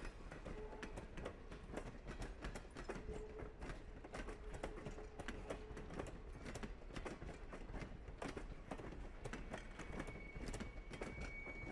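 Wheels of Strasburg Rail Road heritage passenger coaches rolling past, clicking and clunking irregularly over rail joints and switches. Brief squeals come and go in the first half, and a higher-pitched squeal starts near the end.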